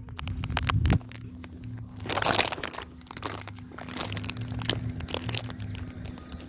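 Footsteps crunching on dry grass and twigs, a series of sharp crackles with a couple of louder rustling surges, over a steady low hum.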